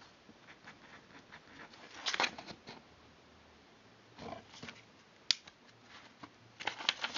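Paper rustling and soft taps as the pages of a small notebook are handled and turned, in small clusters, with one sharp click about five seconds in.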